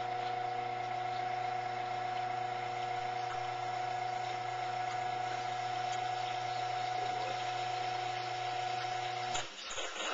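Izzo Alex espresso machine's pump running with a steady hum while a shot pours. It cuts off suddenly near the end, and a short hiss follows.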